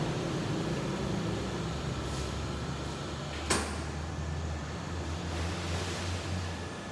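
Yoshida YD3-65N drilling machine running steadily in reversing tapping mode, a low steady hum. There is a sharp click about three and a half seconds in, and the hum's low tone shifts after it.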